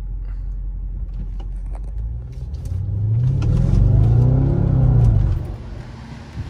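Audi B7 S4 Avant's 4.2-litre V8, heard from inside the cabin, running at a low steady rumble. About two seconds in it accelerates: the engine note climbs in pitch and loudness, then falls back just past five seconds.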